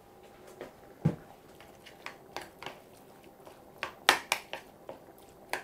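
A series of light knocks and clatters as a mixing bowl is handled on a wooden chopping board, the loudest few coming together about four seconds in.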